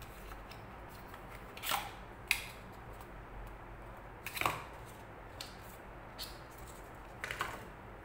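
Cardboard packaging of an Apple 20W USB-C power adapter being handled: a few short scrapes and clicks, spaced out, as the inner paper tray slides out of the box and the adapter is taken from it.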